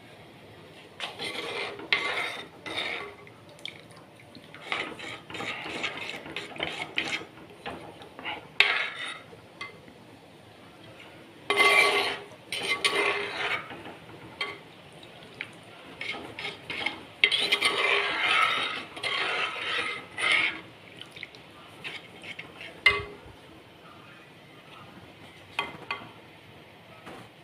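Steel spoon stirring a coconut-milk curry in a pot, scraping and clinking against the pot in irregular spells that die down near the end.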